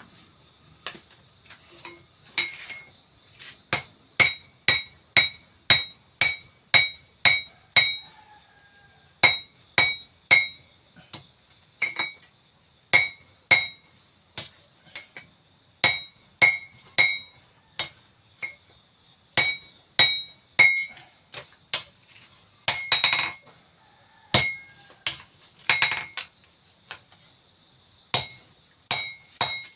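Blacksmith's hammer striking steel on an anvil, in runs of blows about two a second with short pauses between, each blow ringing. A longer, harsher noise comes about 23 seconds in.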